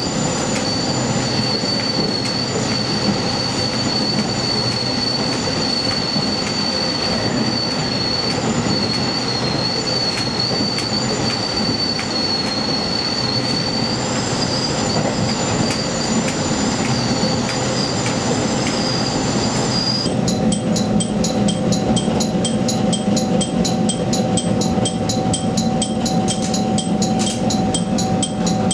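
A diesel railcar running on curved track, its wheels squealing with a high, steady screech over the rumble of the running gear. About two-thirds of the way through the squeal stops, leaving the running noise with a steady hum and a fast, even ticking.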